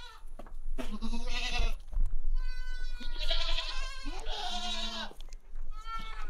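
Goats bleating: a series of about five drawn-out calls with a wavering pitch.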